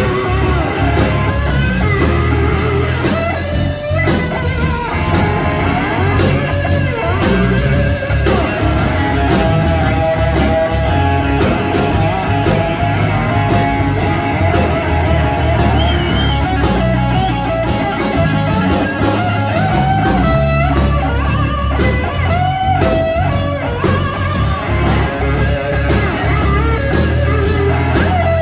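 Live blues-rock band: an amplified metal-bodied resonator guitar playing lead lines over electric bass and drums.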